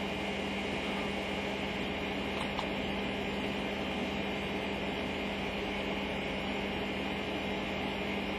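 Steady hum and hiss of a running computer's cooling fan, with one low steady tone under it.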